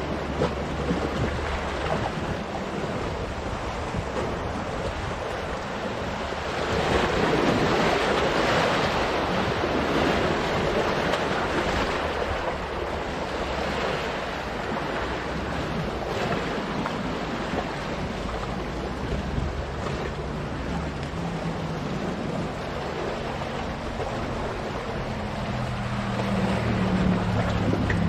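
Black Sea waves washing and splashing against the boulders of a rocky shore, the surf swelling louder for several seconds twice, with wind on the microphone.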